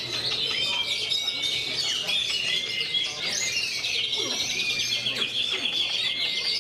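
Oriental magpie-robin (kacer) singing a continuous, varied song of high whistles and chirps, with a fast rattling trill from about four to six seconds in.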